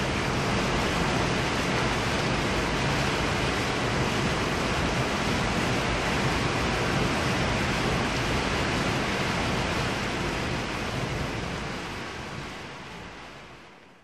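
City rain ambience: steady rain making an even hiss, fading out over the last few seconds.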